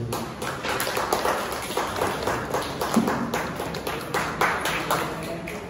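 Audience clapping: a scattered round of applause that thins out near the end.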